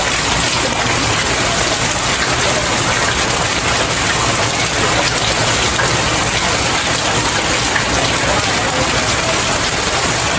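Steady rain falling on stairs, pattering evenly without letting up.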